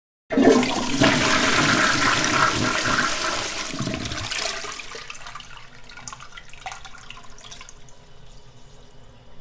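A toilet flushing: a sudden loud rush of water starts just after the beginning, holds for about four seconds, then dies away into a quieter trickle as the bowl drains and the cistern refills.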